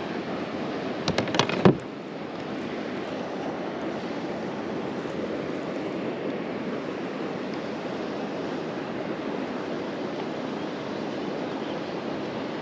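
Steady outdoor wind-and-water noise, most of it rushing over the microphone. About a second in comes a quick run of sharp knocks and clatters, the last one the loudest.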